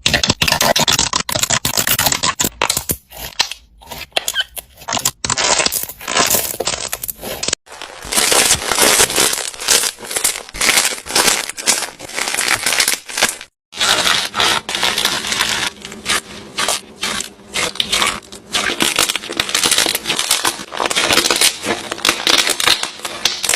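Slime being squeezed, stretched and poked by hand, giving dense crackling and popping. There are two brief silent breaks, about a third of the way in and just past halfway.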